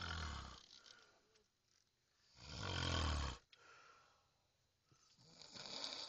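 A man snoring in his sleep: three snores about two and a half seconds apart, the middle one the loudest.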